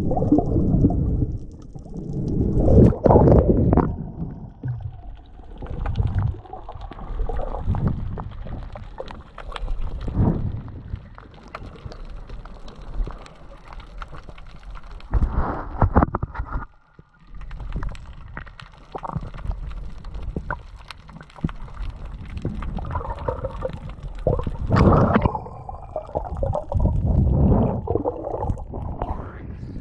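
Muffled underwater gurgling and rumbling of water moving around a GoPro's waterproof housing, rising and falling in uneven swells every few seconds with scattered clicks, and dropping almost out briefly about halfway.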